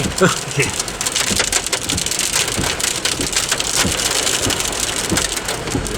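Torrential rain mixed with small hail pelting the car's roof and windows in a dense, steady patter of hits, driven by the straight-line winds of a thunderstorm's rear-flank downdraft.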